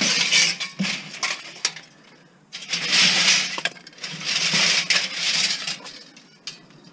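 Pieces of scrap metal clattering and clinking as they are tossed and shoved into the gaps of a packed scrap bin, in three bursts.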